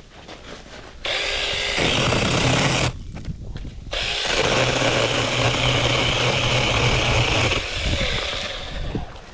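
Sharklogger cordless mini chainsaw's electric motor running as it cuts wood: one burst about a second in, a short break near three seconds, then a longer run that winds down near the end.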